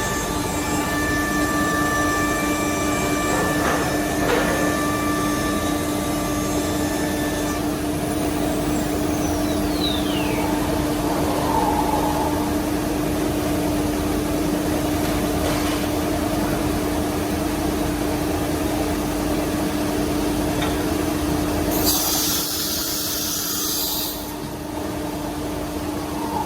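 Holztek PRO-R1v9f CNC nesting router running with a steady hum, its spindle whine falling away about a third of the way in. Near the end comes a hiss lasting about two seconds, then a whine that climbs in pitch as the spindle spins back up.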